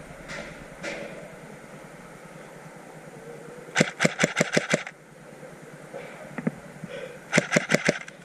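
Airsoft gun firing two quick strings of sharp shots: about eight in a second a little under four seconds in, then about six in well under a second a little past seven seconds in.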